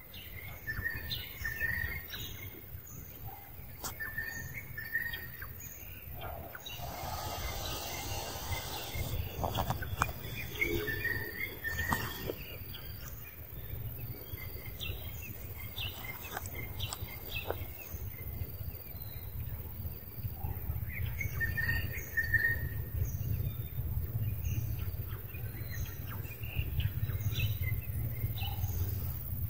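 Wild birds chirping: short, repeated chirps and calls come and go over a steady low rumble. A brief rustling hiss comes about seven seconds in.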